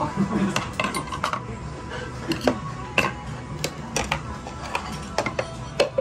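Tableware clinking and clacking at a table: many short sharp clicks of utensils and small containers knocked together at uneven intervals, over faint background music.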